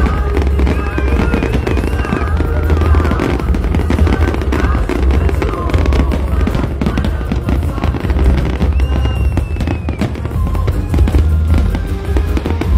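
Large fireworks display going off continuously: rapid overlapping crackling bursts over a steady low rumble, with music and crowd voices mixed in.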